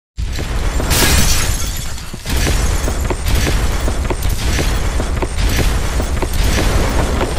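Glass-shatter sound effects over a deep booming rumble, with a fresh crash roughly every second, starting suddenly out of silence.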